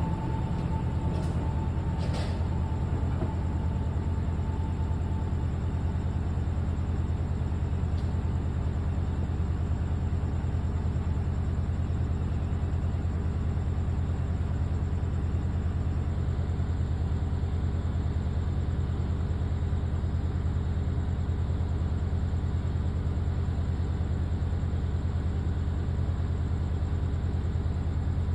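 Diesel-electric locomotive idling with a steady low drone. A fainter high tone fades out over the first few seconds.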